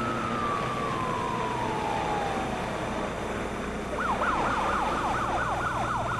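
Siren on a border patrol pickup truck, over the truck's steady running: a long wail slowly winds down in pitch, then about four seconds in it switches to a fast yelp of about three rising-and-falling sweeps a second.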